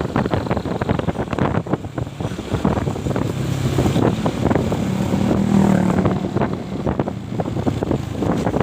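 Motorcycle engine running while riding, with wind buffeting the microphone; the engine hum swells briefly around the middle.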